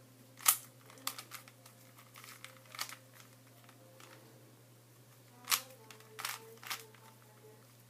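Plastic Rubik's Cube layers clicking and clacking as they are turned by hand, in irregular sharp snaps. The loudest come about half a second in and at about five and a half seconds.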